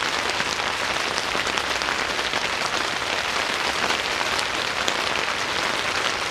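Steady rain falling on a tent roof, a constant hiss with scattered sharper drop ticks.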